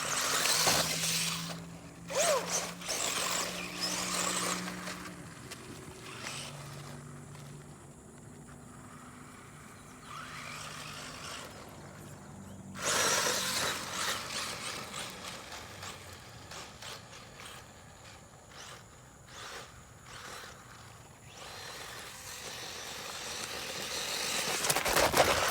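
Brushless electric motor of a 1/16-scale RC short-course truck whining in bursts of throttle, with its tyres scrabbling and scraping over dirt and gravel. The loudest stretches come near the start, a few seconds in, around the middle and building up near the end.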